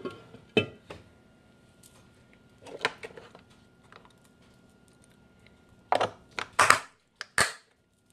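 Small kitchen containers handled on a wooden countertop: scattered clicks and knocks, with a louder clatter of several knocks and rustles near the end as a snap-lid food storage container and a tin of elastics are picked up.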